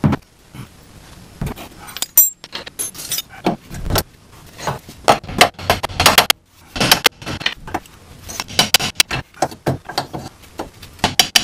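Metal hand tools clinking and clattering as they are picked up, set down and fitted to the car's front suspension: an uneven string of sharp metallic clinks with a few denser runs of rapid clicks.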